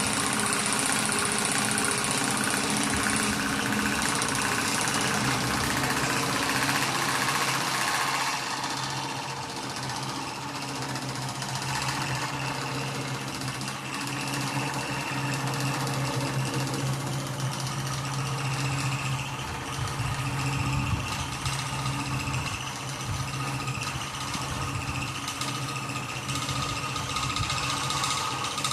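Homemade bench drill press, driven by a washing-machine motor, running while drilling into a 6 mm plate. For about the first eight seconds a high hiss sits over the motor hum, then the sound settles into a steadier hum.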